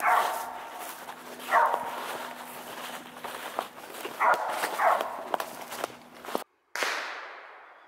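A cur dog barking at a tree, four short barks spaced a second or more apart, the sign of a dog that has treed a squirrel, with footsteps crunching through dry fallen leaves. Near the end, after a brief dropout, a single sudden sound fades away slowly.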